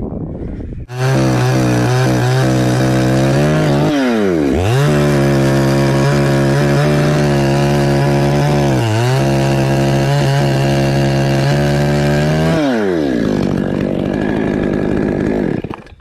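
Two-stroke chainsaw starting up about a second in and running at high revs. Its pitch dips briefly and recovers twice, then the revs fall back near the end before it cuts off.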